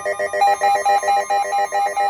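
Electronic beeping tones, several pitches pulsing rapidly together, with a higher beep joining about half a second in and repeating about five times a second.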